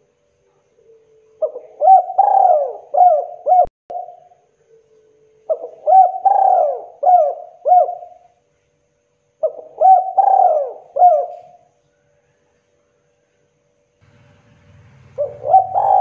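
Spotted dove (tekukur) cooing: three phrases of several quick notes each, about four seconds apart, with a fourth phrase starting near the end.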